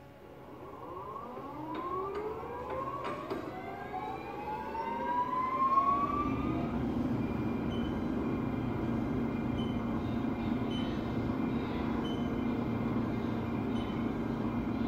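Haas TL-3B CNC lathe spindle spinning up: a whine that rises steadily in pitch for about six seconds, then the machine running steadily at speed with a constant hum.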